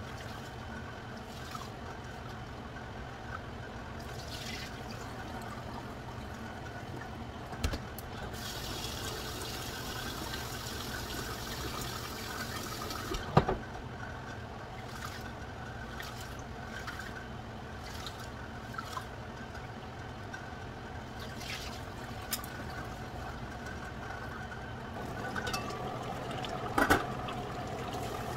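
Water pouring for about five seconds, followed at once by a sharp knock and, later, a few lighter knocks and a short clatter of cookware, over a steady low background noise.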